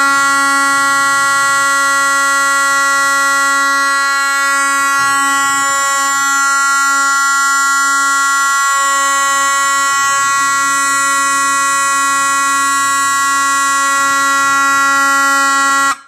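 Simplex 4041 fire alarm horn, a rebadged Federal Signal 450 Vibratone DC vibrating horn, sounding one continuous loud buzzing tone rich in overtones. It cuts off at the end.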